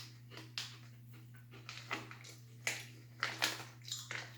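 Irregular close-up crunching of someone chewing dry corn cereal puffs, over a steady low electrical hum.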